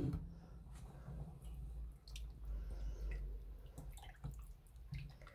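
Spatula stirring rice and chicken in a pot of freshly added water, the liquid sloshing faintly, with a few light clicks of the spatula against the pot.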